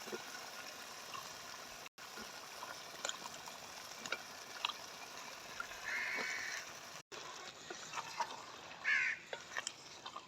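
A few bird calls, about six and nine seconds in, over a steady low hiss with scattered faint clicks.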